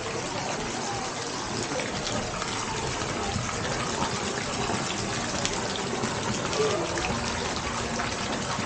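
Steady rush of running water in the stone basin of an old village wash house, with faint voices behind it.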